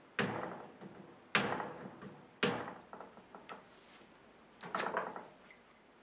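Metal-headed mallet striking a brass lighter tube held in a bench vise: three sharp blows about a second apart, each ringing briefly, then a softer cluster of knocks near the end.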